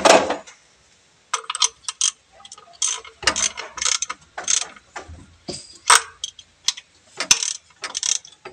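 Hand ratchet wrench clicking in short irregular runs as the timing belt cover bolts are run in, after a single metal knock at the very start.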